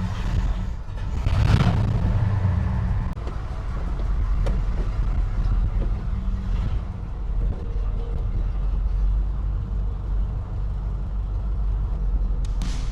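Car engine running at idle, a steady low rumble, with a brief louder surge about a second and a half in.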